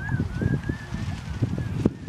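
Wind buffeting the microphone in uneven gusts, with a faint thin wavering tone above it and a sharp click near the end.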